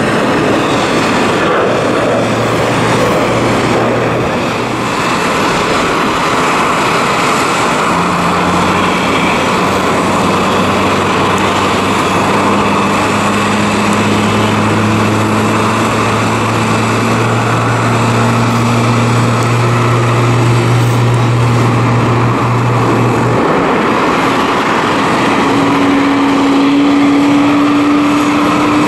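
Airbus A350-900 airliner being pushed back by a tug: a loud, steady turbine rush and whine, with low hums that slowly rise in pitch from about a third of the way in.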